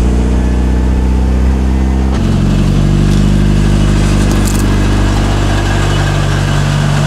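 Mitsubishi Lancer Evolution 6.5 Tommi Makinen Edition's turbocharged 2.0-litre 4G63 four-cylinder idling steadily through its exhaust; its tone shifts about two seconds in.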